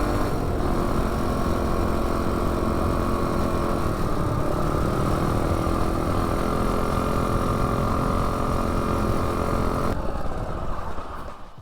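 Modified Predator 212 single-cylinder engine on a minibike, running flat out at a steady high pitch during a top-speed run, with heavy low rumble on the microphone. About ten seconds in, the sound falls away as the run ends.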